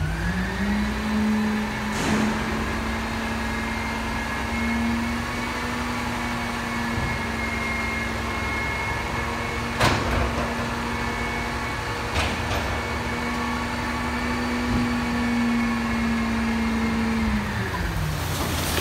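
Roll-off truck's engine and hydraulic hoist revving up just after the start and holding a steady raised pitch while the hoist tilts the container up. The pitch drops back near the end. A few sharp knocks, the loudest about ten seconds in, come from the container and its load of cardboard shifting.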